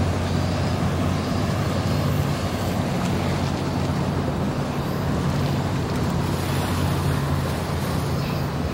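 Boat engine running with a steady low drone, over the wash of choppy river water and some wind on the microphone.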